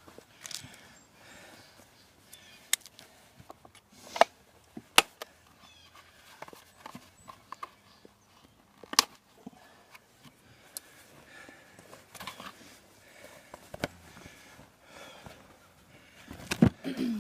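A handful of scattered sharp clicks and knocks over quiet rustling handling noise.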